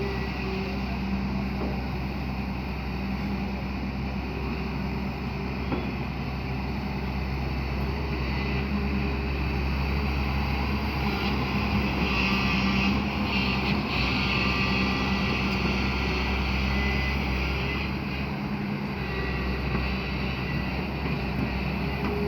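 Hyundai excavator's diesel engine running steadily as it works, growing a little louder for several seconds midway, then settling back.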